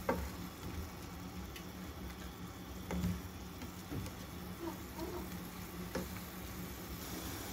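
A spatula scraping and tapping against a stainless steel frying pan as noodles are stir-fried, giving a few short, separate clicks about a second apart over a low steady hum.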